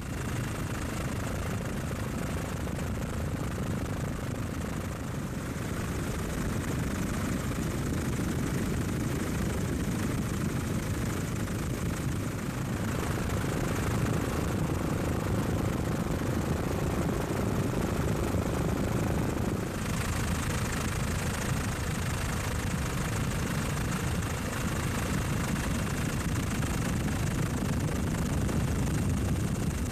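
Steady helicopter engine and rotor noise, heard from aboard the aircraft, with a slight shift in tone about twenty seconds in.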